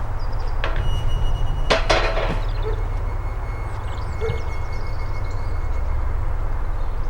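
Wind rumbling on the microphone, with small birds chirping and a few sharp knocks with a short metallic ring about one to two seconds in.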